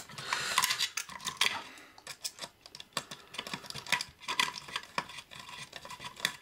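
Small hand screwdriver undoing a screw in a metal enclosure: irregular metallic clicks and scrapes of the bit in the screw head.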